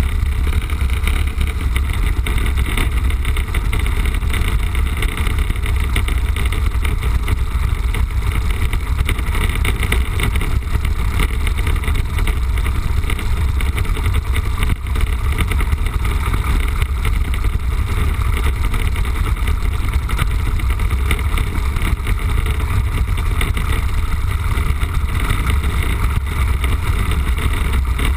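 Piper J-3 Cub's engine and propeller running steadily, heard from inside the cockpit along with the rush of air, during a landing approach.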